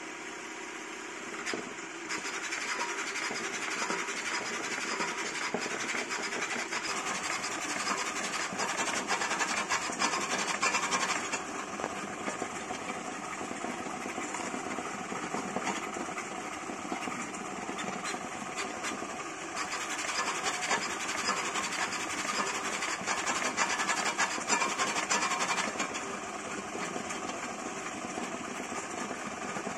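Custom CoreXY 3D printer printing PLA at up to 1000 mm/s with 40,000 mm/s² acceleration: the stepper motors and the fast-darting toolhead and gantry make a dense buzzing, whining machine noise that flickers with every rapid change of direction and swells louder in stretches as the moves change.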